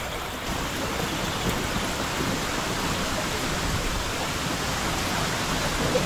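Waterfall cascading over rocks: a steady, unbroken rush of falling water.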